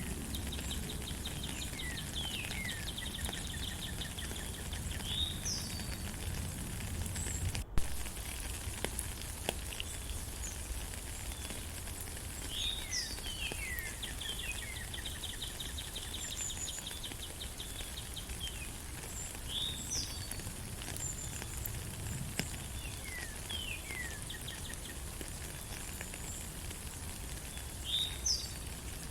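Steady rain hiss with songbirds calling over it: repeated down-slurred whistles and a fast trill that comes back every several seconds. A single sharp click about eight seconds in, where the sound cuts out for an instant.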